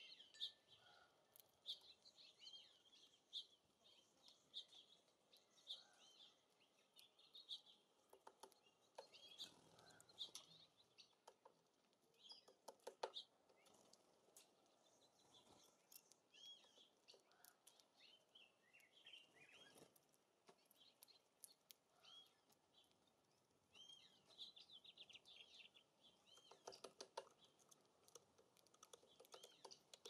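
Small songbirds at a seed feeder giving many short, faint chirps, with scattered light clicks and taps mixed in.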